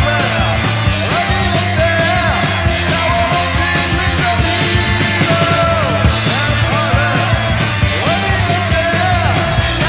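Speed metal recording: distorted electric guitars, bass and drums playing loud and steady, with a high part sliding up and down in pitch over the top.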